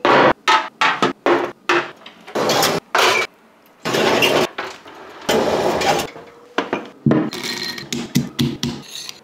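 Small ceramic cocottes clinking down one after another onto a metal baking tray. Then several longer scrapes as the loaded tray goes into the oven, and near the end a quick run of knocks as a pestle pounds nuts in a stone mortar.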